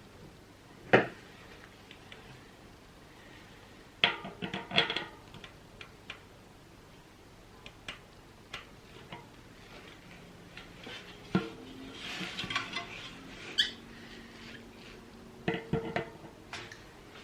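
Scattered sharp clicks and short bouts of light metallic clatter from a bicycle rear wheel hub and its parts being handled while the freehub body is worked off, with a denser rattly stretch past the middle.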